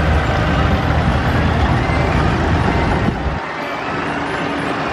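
Fordson Super Dexta's three-cylinder diesel engine running as the tractor drives past close by. The heavy low rumble drops away suddenly about three seconds in as it moves off, leaving the lighter sound of the other vintage tractor engines following in line.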